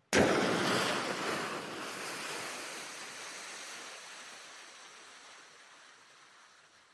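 Hydrophone recording of a deep-sea instrument imploding at 8,500 m: a sudden loud crash like breaking glass, then a long hiss that fades away over several seconds. The shock saturates the hydrophone, the collapsing bubble breaks into countless smaller bubbles, and the sound reverberates through the Challenger Deep as the hydrophone recovers.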